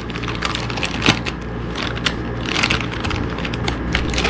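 Thin clear plastic bag crinkling and crackling in the hands as it is handled and opened, with irregular crackles all through.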